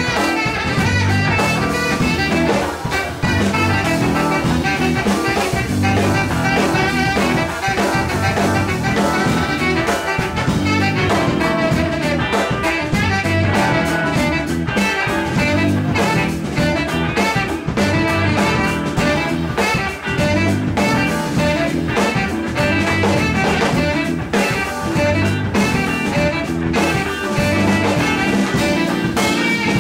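A small live band playing a jazzy, bluesy instrumental: electric guitar, drum kit, saxophone and a brass horn, with a steady beat.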